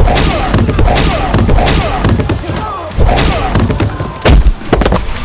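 Dubbed-in fight sound effects: a rapid run of loud, gunshot-like blasts and heavy thuds, roughly two a second, with a deep, booming hit about four seconds in, and voices in between.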